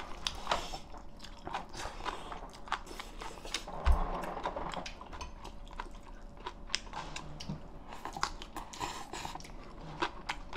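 A person chewing a mouthful of soup seaweed close to the microphone, with scattered small clicks and a single louder thump about four seconds in.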